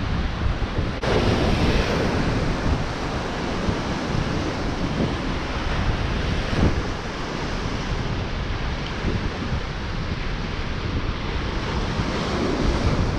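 Ocean surf breaking and washing over the rocks in a steady rush, with wind buffeting the microphone. The sound changes abruptly about a second in.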